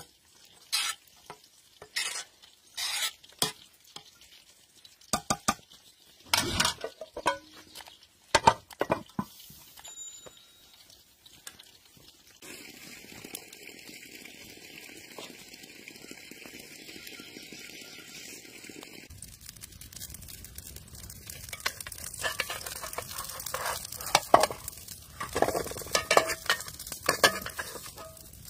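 Metal ladle scraping and knocking in a large pot of steamed rice, in separate strokes every second or two. About twelve seconds in this gives way to a steady hiss, then to food frying in oil in a metal pan, a sizzle with spoon clinks that grows louder near the end.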